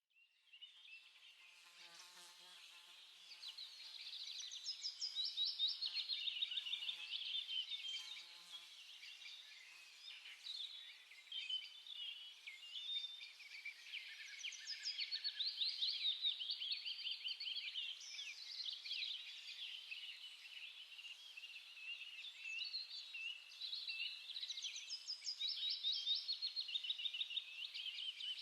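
Many small birds chirping and chattering together, with fast overlapping high trills and twitters that swell and fade.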